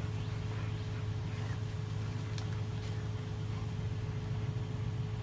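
Steady low mechanical hum with a constant higher tone over it, unchanging throughout.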